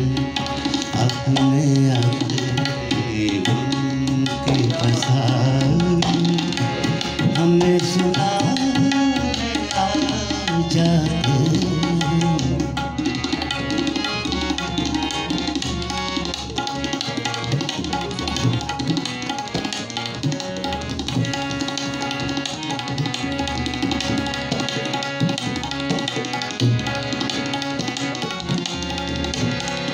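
Tabla drums and a harmonium playing together: a running tabla rhythm under a held harmonium melody, with no singing.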